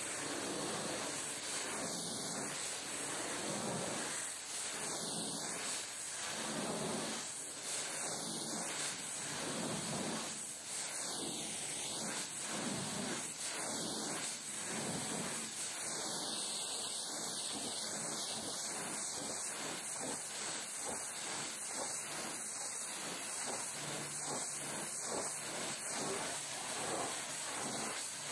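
High-pressure washer jet spraying a truck's tarpaulin curtain side, a steady hiss of water washing off mud. It swells and eases about every three seconds as the lance sweeps back and forth.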